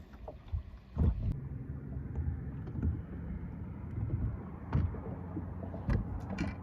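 Fishing boat on the water: a steady low rumble with a faint hum underneath, broken by a few sharp knocks, the first about a second in and three more near the end.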